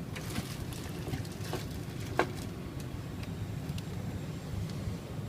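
Steady low rumble with scattered light clicks and one sharper tick about two seconds in: hand handling of the casement crank hardware and screws in a pause between drill runs.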